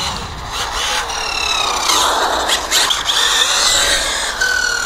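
ZD Racing 08425 1/8 brushless buggy running hard on a 4S battery: a high-pitched whine from the brushless motor and drivetrain in several pitches that fall gently, over a rushing noise that peaks about two seconds in.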